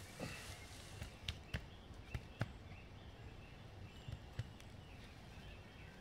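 Faint, scattered sharp snaps and crackles of dry wood, about seven of them, most in the first half, over a quiet woodland background.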